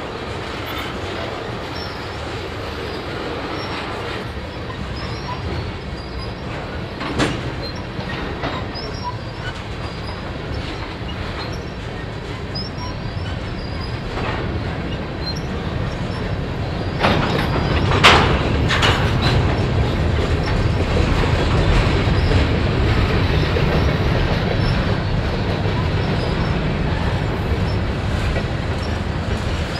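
Freight train cars rolling past on the rails with a steady rumble of wheels on track. There are sharp bangs about seven seconds in and a cluster of them around eighteen seconds, after which the rumble grows louder.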